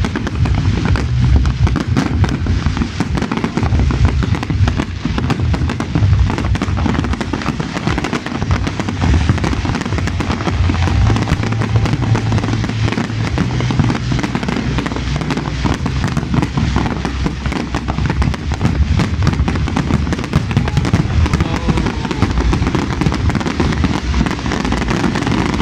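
Fireworks display at full intensity: a dense, unbroken barrage of bangs and crackling from many shells bursting at once, with deep booms throughout.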